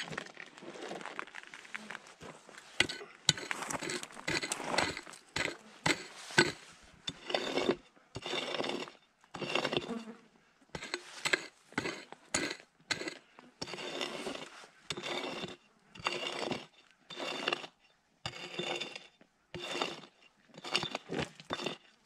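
A prospector's pick chopping and scraping into stony dirt to dig out a metal-detector target. Each stroke is a sharp strike followed by a short scrape of soil and gravel, repeated about once a second.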